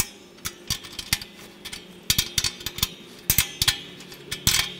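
Ratchet wrench clicking as a 3/4-inch flange bolt on the blade's mounting bracket is tightened: a few scattered clicks, then three quick runs of clicks in the second half.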